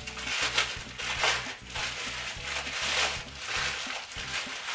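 White wrapping paper crinkling and rustling in irregular handfuls as a wrapped item is unpacked by hand, over quiet background music.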